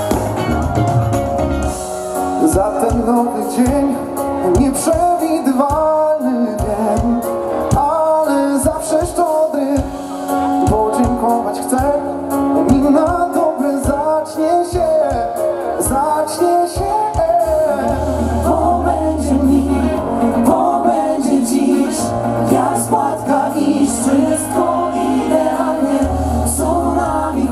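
Live band playing a song, with a male lead singer and a group of backing singers. A steady beat runs under the voices, and held low bass notes come in about eighteen seconds in.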